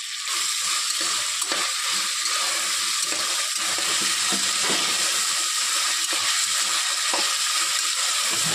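Chopped tomatoes, onions and green chillies sizzling in hot oil in an aluminium pressure cooker, the sizzle getting louder just after the start. A steel spatula stirring the mix scrapes and knocks against the pot now and then.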